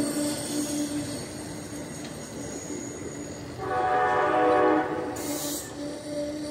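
Amtrak passenger train rolling past a station platform with a steady tone over the running noise of the cars. About three and a half seconds in, the locomotive's chime horn sounds one chord for just over a second, followed by a brief hiss.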